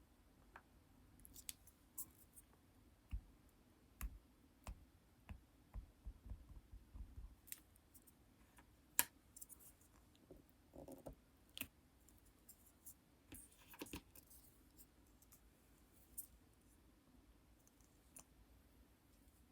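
Faint, irregular clicks and light taps from lipstick being handled up close, with a few short sticky, scratchy smears in between.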